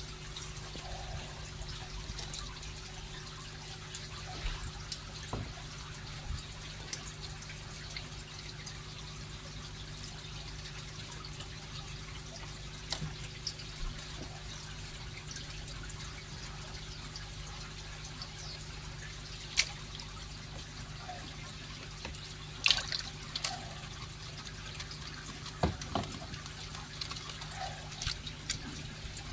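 Shallow water in a plastic tray lapping and dripping as a bowl is dipped and lifted among koi fry, with a few sharper splashes about two-thirds of the way through, over a steady low hum.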